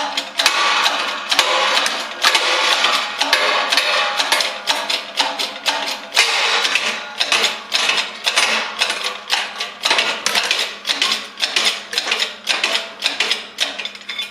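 High-speed-steel keyway broach being forced through a 4140 steel gear blank, giving a rapid, irregular run of sharp clicks and cracks as its teeth bite and scrape. The steel is too hard for the broach, which the machinist suspects was already heat-treated, and the broach breaks.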